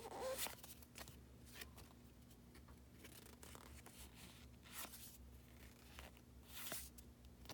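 Baseball cards slid one at a time off a pack's stack, each giving a brief faint swish, about five in all, spaced a second or two apart. A faint steady low hum lies underneath.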